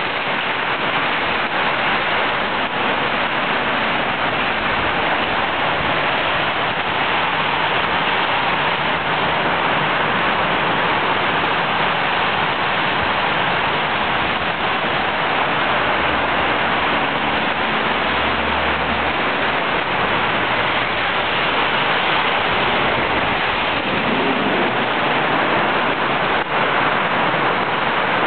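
Heavy downpour in a storm: a dense, steady hiss of rain pouring onto the street and roofs. A low rumble runs under it for a few seconds past the middle, and there is one brief knock near the end.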